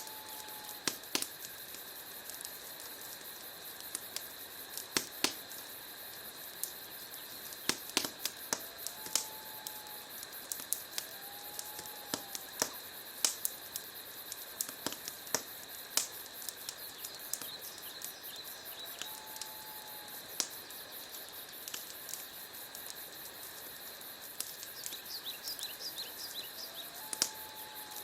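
Wood fire burning in a fireplace, crackling and popping irregularly over a steady hiss. A few short whistled notes, like a bird call, sound now and then.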